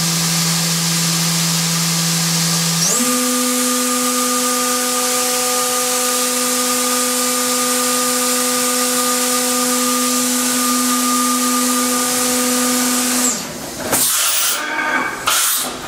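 Fanuc Robodrill's spindle running with a steady whine over a hiss. About three seconds in, the whine steps up in pitch as the spindle speeds up. It stops about thirteen seconds in, followed by a few seconds of irregular knocks and rustling.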